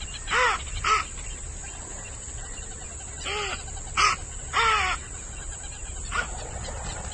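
A bird calling repeatedly: about six short calls in uneven groups, each rising and then falling in pitch.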